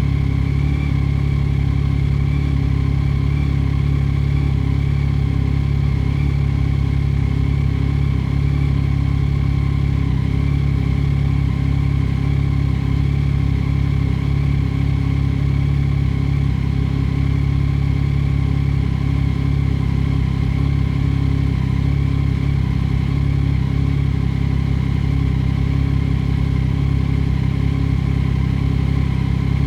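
2022 Yamaha Tracer 9 GT's 890 cc inline three-cylinder engine idling steadily while warming up after a cold start, through an Akrapovič full exhaust with no baffle.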